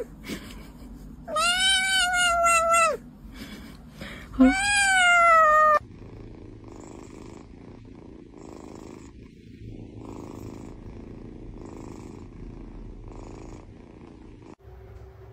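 A kitten meows twice, loud drawn-out cries each about a second and a half long. Then a cat purrs steadily in slow, even pulses about once a second.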